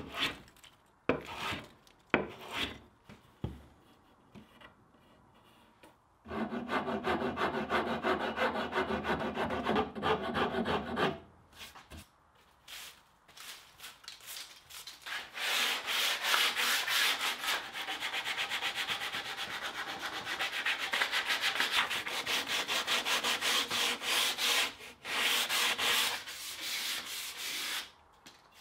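A wooden hoe handle being hand-worked: a few single rasp strokes at the start, then long spells of quick, even back-and-forth rubbing as sandpaper is worked along the handle.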